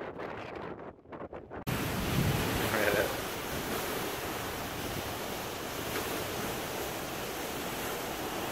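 Wind buffeting the microphone, a steady rushing noise that starts abruptly about a second and a half in; before it there is only quieter, patchy rustling.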